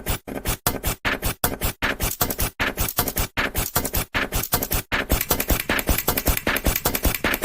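Rhythmic loop of short scratching and scraping noises, samples of everyday objects chopped and sequenced into a beat, about three hits a second at first and quicker and denser after about five seconds.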